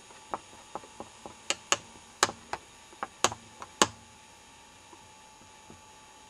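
About a dozen sharp clicks and taps at irregular intervals over the first four seconds.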